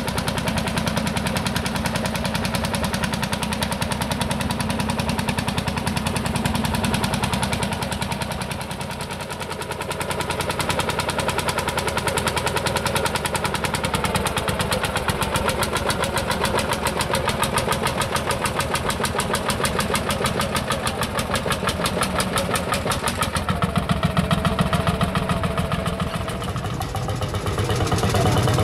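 Single-cylinder hot-bulb two-stroke tractor engine running with a rapid, even beat. It gets softer and louder a couple of times.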